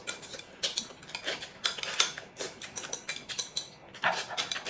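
Chopsticks clicking and scraping against a ceramic bowl held up to the mouth as food is shoveled in, with eating noises, in quick irregular clicks.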